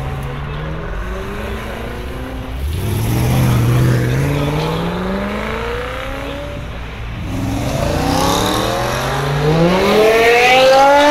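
Car engines accelerating hard as cars pull away one after another, the engine pitch climbing in long rises and dropping back between them. The loudest run-up comes near the end, as another car accelerates close by.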